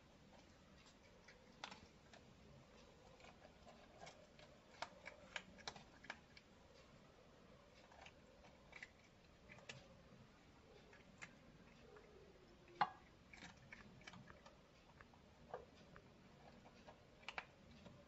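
Kitten crunching dry cat food from a bowl: faint, irregular little crunches and clicks, with one sharper click about two-thirds of the way through.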